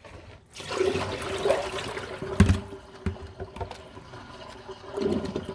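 Kitchen tap running into the sink for about two seconds, cut off with a sharp knock about two and a half seconds in, followed by a faint steady hum.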